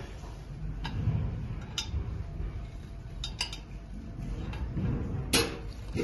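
Steel pliers clicking and clinking against gold-plated metal tubing and a plastic plug at a tube joint: a few sharp, scattered ticks, the loudest about five seconds in, over a steady low rumble.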